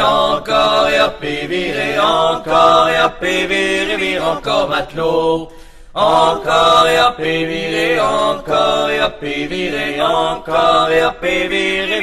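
Traditional folk music on the soundtrack, a run of pitched notes that dips briefly about halfway through.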